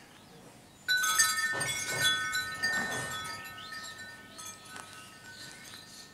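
Chimes ringing: a sudden jingling burst of bell-like tones about a second in, ringing on and slowly fading.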